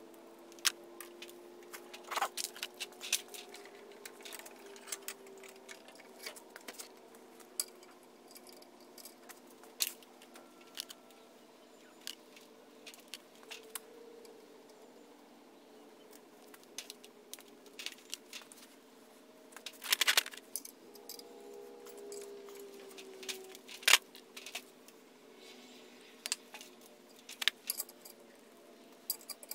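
Small metal parts of a brake-line flaring tool clinking and clicking as they are handled and fitted together: the clamp bar, yoke and adapters. The sharp clicks come irregularly, loudest in a short cluster about twenty seconds in, over a faint steady hum.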